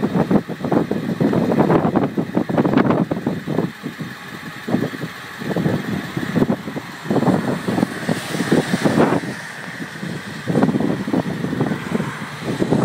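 Strong wind buffeting the microphone in uneven gusts that swell and drop every second or so.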